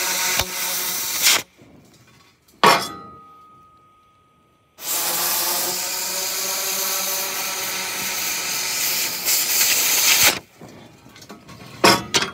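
Oxy-fuel cutting torch hissing as its cutting jet blows through thin-wall Schedule 10 square steel tubing. The hiss stops after about a second and a half, a short sharp noise comes about a second later, and the hiss runs again for about five seconds from near the five-second mark before stopping.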